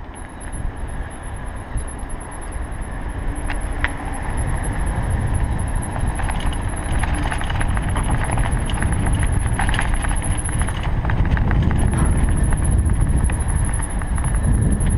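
Bicycle rolling fast down a rough, patched asphalt lane. Wind buffets the camera microphone and the tyres rumble, getting louder as speed builds over the first few seconds, with scattered clicks and rattles from bumps in the surface.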